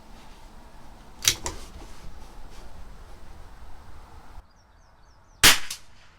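Two sharp reports from a CZ 457 LRP bolt-action .22 LR rifle firing SK Semi Auto Rifle rimfire match ammunition, one about a second in and a louder one near the end.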